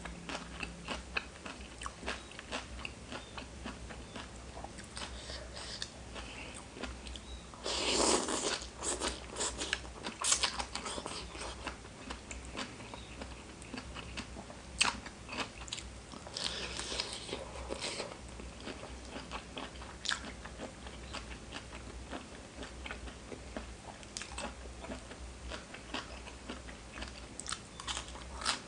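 Close-miked eating of spicy seafood papaya salad with raw vegetables: steady irregular crunching and chewing, with louder crunches at about 8 seconds and again around 16 to 18 seconds.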